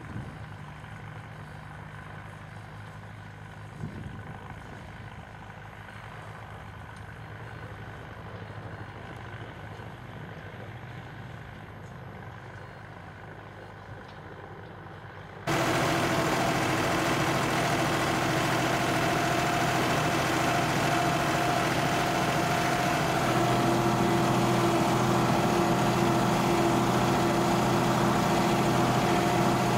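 Ursus 6024 tractor engine running steadily under load as it pulls a seed drill. About halfway through it suddenly becomes much louder and closer, with a steady whine over the engine drone.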